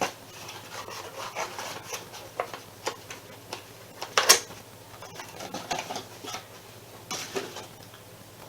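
Plastic bags of Lego pieces being handled and moved about: irregular rustling with scattered clicks of the bricks inside, and one louder knock about four seconds in.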